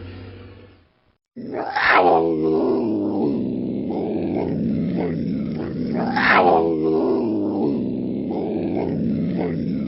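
An animal vocalising with long, drawn-out growling calls, louder swelling calls about two and six seconds in, after a brief break just over a second in.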